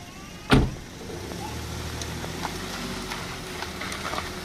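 A sharp thump about half a second in, then a small hatchback's engine running steadily as the car is driven off.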